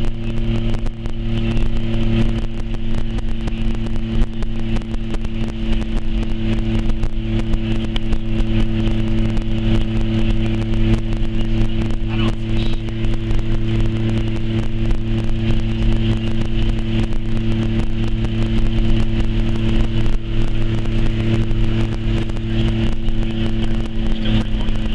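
A car driving, heard from inside the cabin: a steady engine and road drone with a rushing noise over it.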